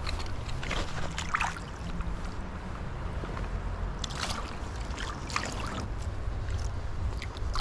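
Fast, high river water rushing steadily, with wind buffeting the microphone and a few short splashes about a second in and again around four to six seconds in.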